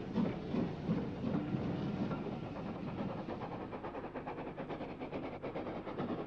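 Steam locomotive working a train, its exhaust beating steadily about twice a second. After a couple of seconds it gives way to a quicker, lighter rhythm of beats as the train runs on.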